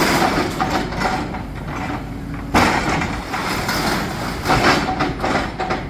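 Demolition excavator working on a building, its diesel engine running under crashing and clattering rubble and breaking material, with a sudden louder crash about two and a half seconds in.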